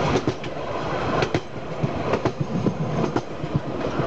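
Heritage railway carriage rolling along jointed track: its wheels click over the rail joints in quick pairs about once a second, over a steady rumble of the train running.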